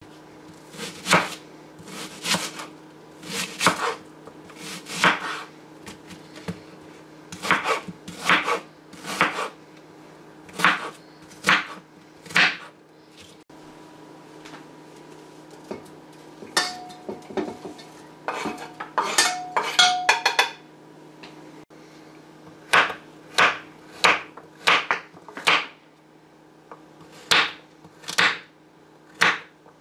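Chef's knife chopping vegetables (onion, then baby carrots) on a wooden cutting board: sharp knocks, one or two a second, in uneven runs. Partway through come a few seconds of scraping and clatter with a metallic ringing as chopped onion is scraped off the board into a stainless steel pot.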